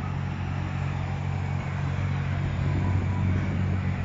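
A car engine running steadily: a deep, even drone with noise layered over it and no change in pitch.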